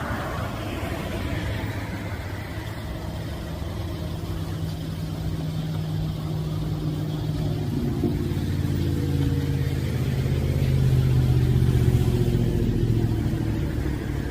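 A car engine running close by, its steady hum growing louder through the second half and easing off near the end.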